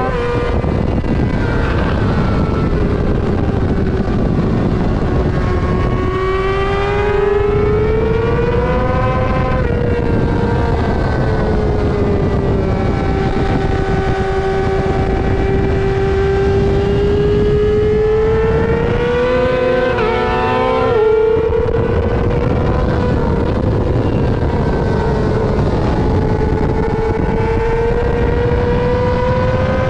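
Yamaha R6 sport bike's inline-four engine running at high revs on track, its note rising and falling smoothly with speed through the corners. A quick gear change breaks the note about two-thirds of the way through. Wind noise runs under the engine.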